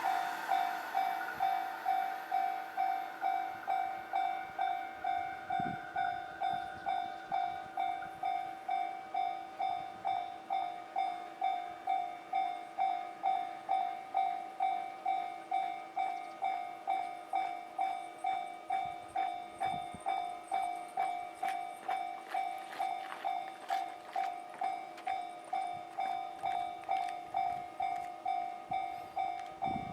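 Japanese level-crossing warning bell ringing, an electronic ding repeating steadily a little under two times a second, with faint clicking from the tracks in the second half.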